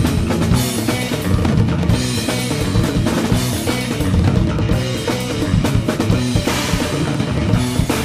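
A band's song playing, with a full drum kit keeping a busy beat of kick and snare over bass and other held pitched instruments.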